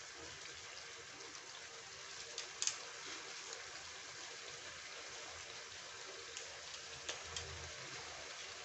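Thick tomato-cashew masala simmering in a kadai: a faint steady sizzle with a few small ticks and pops, about two and a half seconds in and again around seven seconds in.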